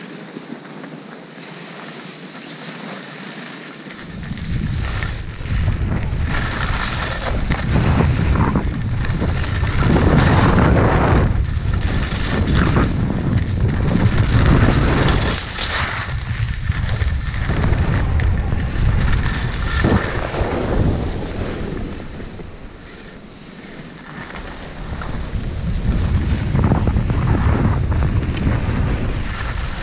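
Wind buffeting an action camera's microphone during a fast descent on snow, a heavy rumble that starts about four seconds in. Over it comes the hiss and scrape of edges carving the snow, swelling and fading with each turn.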